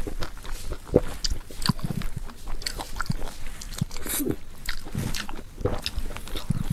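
A person eating close to the microphone: chewing and biting food, with irregular wet clicks and smacks.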